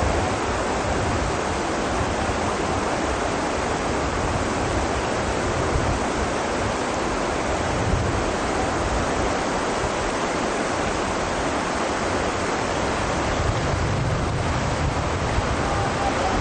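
Whitewater rapids rushing steadily: a loud, even rush of fast-moving river water.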